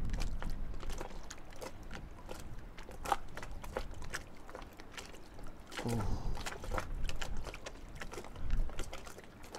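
Water lapping and trickling against a sailboat's hull, with many scattered small clicks and knocks.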